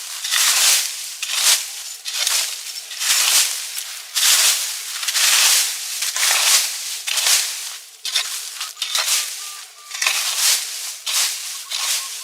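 Repeated dry crunching, roughly one crunch every second, uneven in strength.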